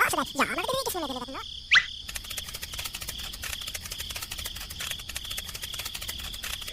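Crickets chirping: a steady shrill trill with rapid, even clicking through most of it. In the first second and a half, swooping animal-like calls rise and fall in pitch, and a short rising chirp comes just before the clicking starts.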